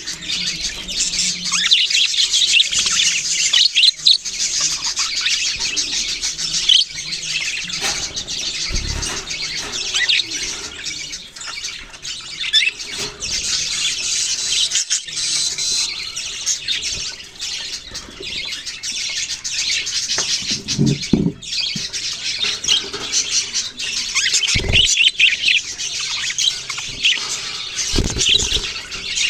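A flock of budgerigars chirping and chattering, many high calls overlapping without a break. A few brief low thumps come through now and then.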